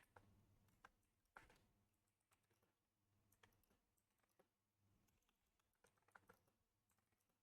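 Very faint computer keyboard typing: scattered, irregular key clicks barely above silence.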